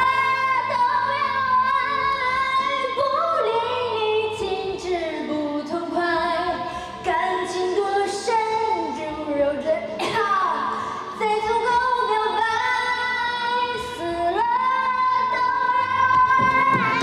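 A song sung by a high female voice, with long held notes and sliding phrases over a musical accompaniment.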